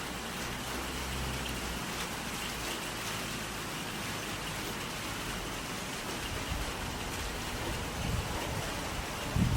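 Steady rain falling, an even hiss with a few scattered drop ticks. From about six seconds in, gusts of wind buffet the microphone with a low rumble that grows stronger near the end.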